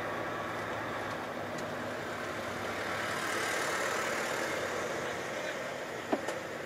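Volvo FH truck's diesel engine running steadily, heard from inside the cab, swelling slightly about three to four seconds in. A faint click just after six seconds.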